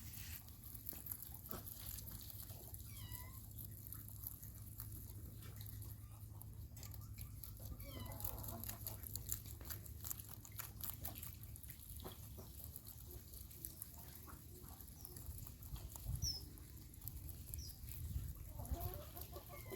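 Rabbits feeding on grass: faint scattered clicks and rustles of nibbling and moving through the grass, with a few short bird chirps and a low hum underneath.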